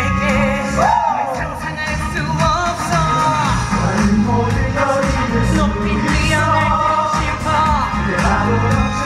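Pop song performed live: a singer's voice sliding and holding notes over a backing track with a steady beat.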